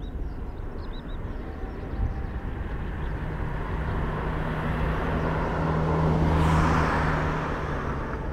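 Boeing 787 airliner on approach with landing gear down, its jet engines' noise building as it comes closer, loudest about six to seven seconds in, then easing off, with a steady low hum underneath from about three seconds in.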